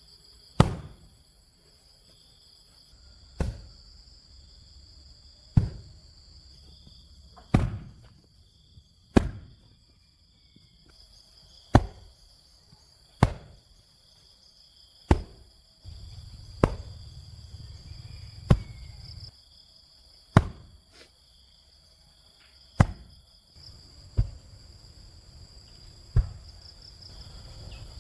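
Repeated sharp blows of a hand tool striking the ground, about one every two seconds. Insects trill steadily in the background.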